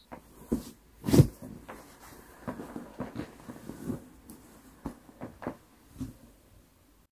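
A string of irregular knocks and clatters from things being handled and set down, the loudest a sharp thump about a second in.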